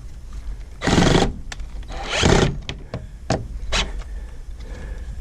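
Latch hardware being tightened into the wooden coop door: two short bursts of noise about a second apart, then a few sharp clicks and knocks.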